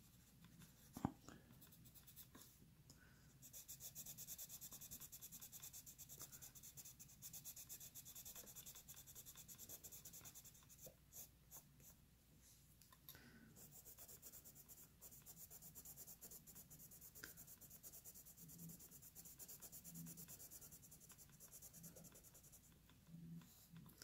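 Faint, rapid scratching of a gray Prismacolor colored pencil shading on coloring-book paper, with a short pause about halfway through.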